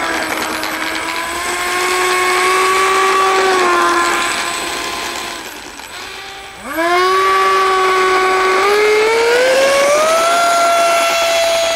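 Electric ducted-fan motors of a radio-controlled Me-262 model jet whining. The pitch sags and the sound fades about halfway through, then spools up sharply and climbs again to a steady high whine as the model is throttled up for its take-off run.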